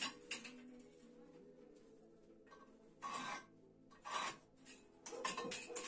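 Faint scraping strokes: two single strokes about a second apart, then a quick run of several near the end, over a low steady hum.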